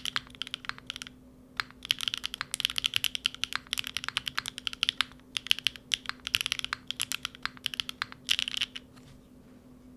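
Typing on a Neo70 mechanical keyboard with Unikeys Udon linear switches in an aluminium plate, no foam, GMK keycaps: a fast, continuous run of keystrokes with a short pause about a second in. The typing stops near the end.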